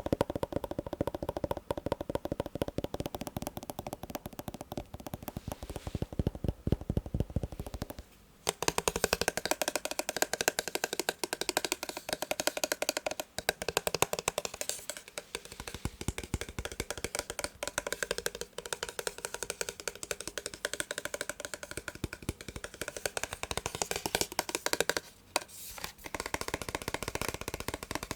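Massage gun's percussive head hammering on a surface in a fast, continuous stream of taps, stopping briefly about eight seconds in and again near the end. After the first stop the taps sound brighter and thinner.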